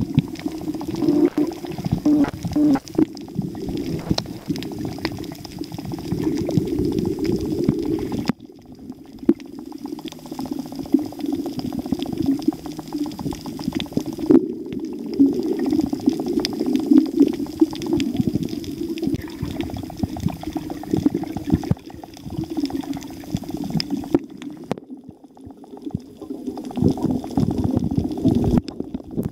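Muffled underwater rushing and bubbling picked up by a camera held under water on a reef, with many sharp clicks scattered through it. The sound drops away briefly a few times.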